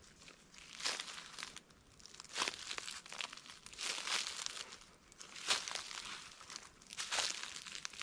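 Footsteps crunching through dry leaf litter on a forest floor at an unhurried walking pace, about one crunch a second.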